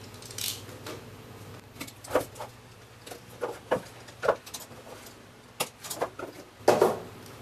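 A cardboard retail box being cut open with a knife and its packaging handled: a string of short scrapes and taps, with a longer scraping rustle near the end.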